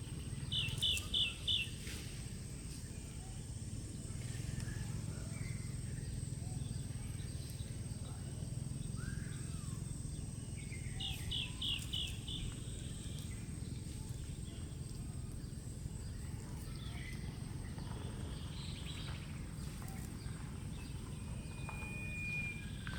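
Outdoor ambience: a steady low rumble under a thin, steady high whine. Twice, a bird-like call of four quick high chirps sounds, about half a second in and again about eleven seconds in.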